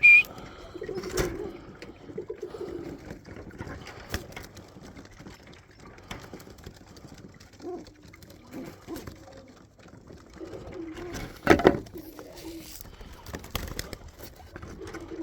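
Domestic pigeons cooing in a loft, with a short high whistle at the very start and a brief loud clatter about eleven and a half seconds in.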